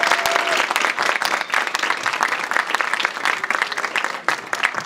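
Audience clapping for a round of applause, dense at first and thinning out and fading toward the end, with one held voice cheering at the very start.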